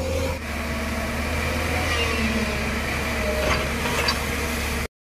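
JCB tracked excavator's diesel engine running steadily, a constant low hum under an even rushing haze. The sound drops out for a moment at the very end.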